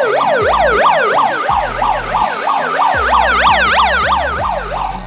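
Handheld police megaphone's built-in siren sounding loudly: a fast yelp that sweeps up and down in pitch about four times a second, cutting off just before the end.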